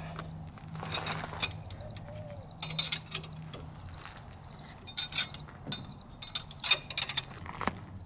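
A 3/8-inch drive ratchet with a 15 mm socket clicking in four short bursts of quick strokes, a couple of seconds apart, as the brake caliper bolts are loosened.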